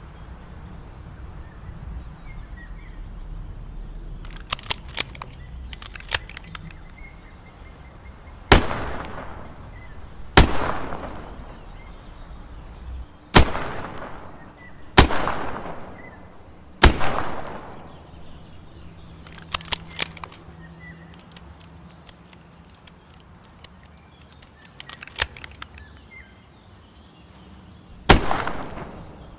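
Smith & Wesson 360J revolver fired six times, each shot a sharp crack with a trailing echo. Five shots come a second or two apart, then one more after a long pause. Quick clusters of small metallic clicks fall in between, and birds chirp faintly behind.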